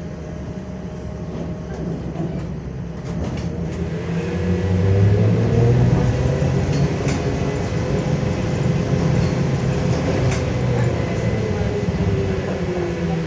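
LiAZ-5280 trolleybus on the move, heard on board: the DK-213 traction motor's whine glides up and down in pitch over a low rumble that grows louder about four seconds in. Two sharp clicks come later.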